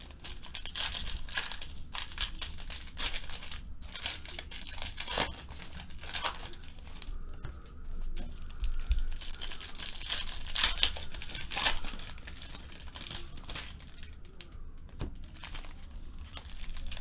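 Foil-wrapped Panini Phoenix football card packs crinkling and crackling as they are handled and torn open, in irregular rustling bursts.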